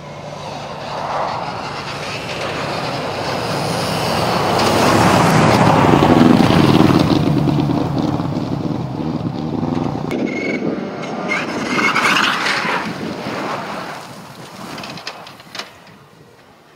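Rally car engine at high revs as the car approaches and passes on a snow stage, growing louder to a peak about six to seven seconds in, then dying away. A second car's engine swells about twelve seconds in and fades to quiet near the end.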